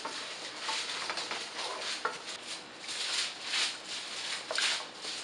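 Spoon stirring a thickening mustard cream sauce in a skillet: soft, irregular swishes with a few light clicks.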